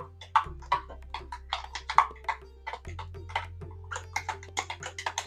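Background music: quick percussion hits over low sustained bass notes, with the bass changing pitch about half a second in and again near three seconds.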